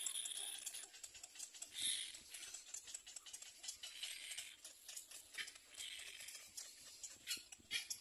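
Faint, high, hissy bird calls, short and repeating every second or two.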